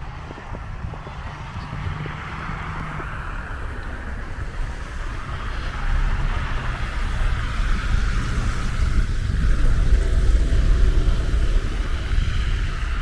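Street traffic passing on a snowy city street, a steady rumble and tyre hiss, with wind buffeting the microphone; the low rumble grows louder about halfway through.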